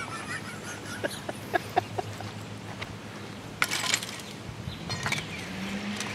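A long stick poking into burning thermite slag and broken porcelain: a few light knocks, then a short burst of scraping and clinking nearly four seconds in, over a steady low hum.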